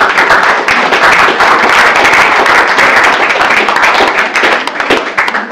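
Audience applauding loudly, a dense patter of many hands clapping that dies away near the end.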